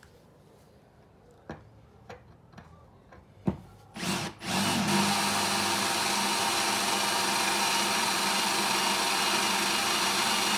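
Einhell TE-CD 18 Li-BL brushless cordless drill boring a 4 mm bit through a steel flat bar. After a few light clicks, the drill starts about four seconds in and then runs at a steady speed, with a constant hum and the bit cutting the metal.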